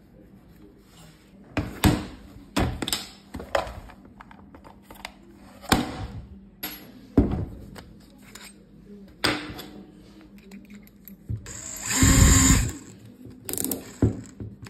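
A series of knocks and clicks from tools being handled, then a DeWalt 18V XR cordless drill runs briefly, for under a second, about twelve seconds in, followed by a couple more clicks.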